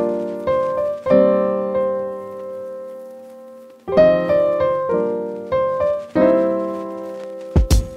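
Background piano music: chords struck and left to ring, one held and fading for a few seconds, with a drum beat coming in near the end.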